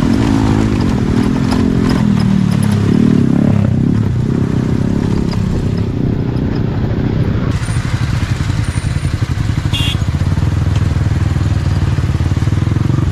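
Motorcycle engine running under way on a dirt track. Its pitch rises and falls through the first few seconds, then settles into a steady low beat at slow speed.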